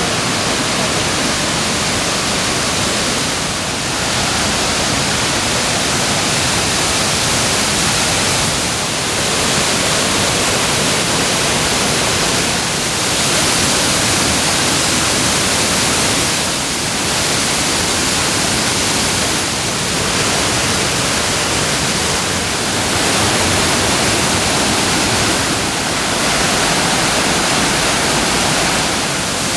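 Waterfall: water falling and splashing in a loud, steady rush that dips slightly now and then.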